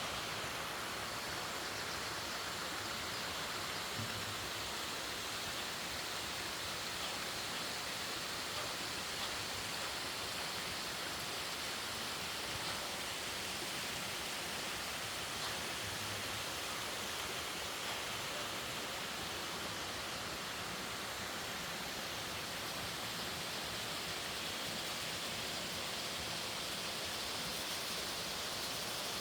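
Mountain stream rushing over rocks, a steady even wash of water noise.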